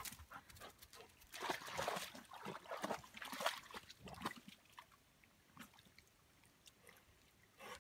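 A dog splashing and sloshing in a shallow trickling stream, a run of small irregular splashes that stops about five seconds in.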